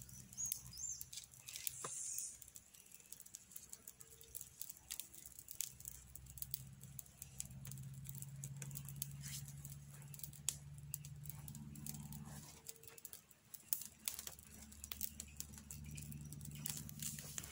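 Small kindling campfire crackling, with many sharp irregular pops and snaps, over a low steady hum.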